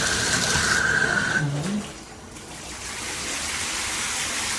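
Water spraying from a shower head, with a thin steady whistle for the first second and a half. The spray drops off sharply about two seconds in, then runs steadily again a little quieter.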